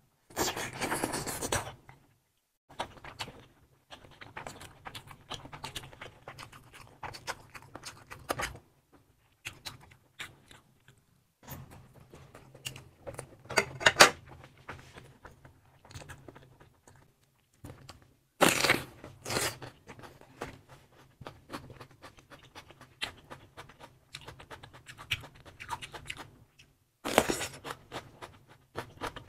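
Close-miked eating of spicy-sauced sausages: chewing and wet mouth sounds come in bursts, with scrapes and clicks of a metal knife and tongs on the plate. The sharpest click comes about halfway through.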